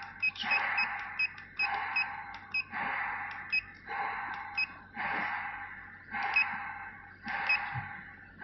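Short electronic key beeps from a CNC plasma cutter's controller as its buttons are pressed to step through the setup menu, several a second at first and then more spaced out. Each beep comes with a soft hiss that swells and fades about once a second.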